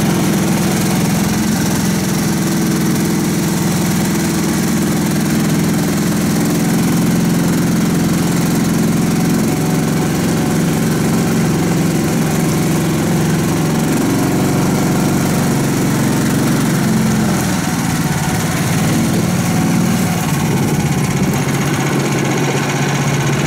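Karakat all-terrain vehicle's engine running steadily under way, driving through its CVT; the engine note steps down slightly twice.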